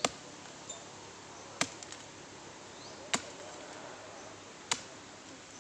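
A hoe chopping into earth: four sharp strikes about a second and a half apart.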